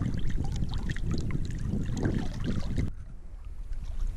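Lake water sloshing and splashing right at a camera held at the water's surface as people swim. About three seconds in it cuts off suddenly to quieter lapping with a low wind rumble on the microphone.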